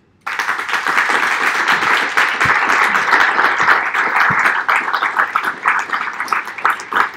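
Audience applauding: many hands clapping together, starting just after the start and thinning out near the end.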